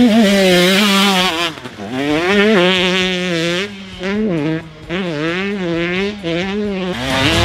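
KTM 150 two-stroke dirt bike engine with a Varner-built engine, revving hard on track. Its note climbs and falls repeatedly as the throttle is opened and shut, with a couple of brief drops in the revs.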